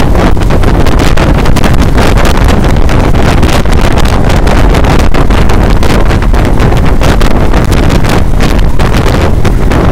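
Loud, steady wind buffeting on the microphone of a phone filming from a vehicle travelling at speed, over a low road rumble.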